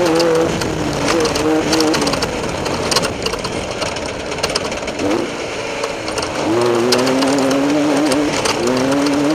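Off-road race vehicle's engine running hard, its note dropping off in the first couple of seconds and climbing back up in the second half. Scattered sharp clicks and rattles from the vehicle crossing rough ground are mixed in.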